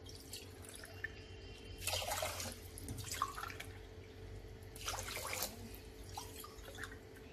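Sugar and water heating in a kadhai on a gas stove for rasgulla syrup, starting to bubble as it comes up to the boil. There are a few short bursts of bubbling and splashing about two, three and five seconds in, over a steady low hum.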